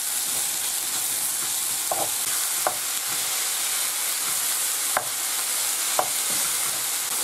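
Diced pork frying in oil with chopped peppers and onion, a steady sizzle, while a wooden spoon stirs it and knocks against the frying pan four times.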